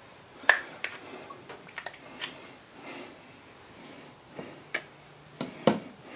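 Sharp clicks and taps of a utensil knocking against a stainless steel pot and a peanut butter jar as peanut butter is scooped and scraped into the pot: about eight irregular clicks, the loudest about half a second in and near the end.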